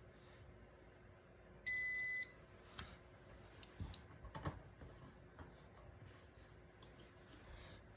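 A single electronic beep, one steady high tone lasting about half a second, about two seconds in. A few faint knocks and clicks follow.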